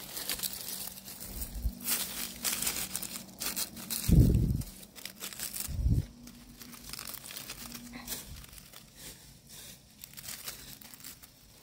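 Dry fallen leaves and chestnut burrs crackling and rustling under a hand searching the forest floor for chestnuts, with two dull thumps about four and six seconds in. The crackling thins out over the last few seconds.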